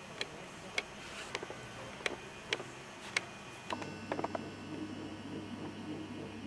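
Sharp, light clicks and taps, irregular, roughly one every half second. About four seconds in, a low steady hum begins, with a quick flurry of clicks.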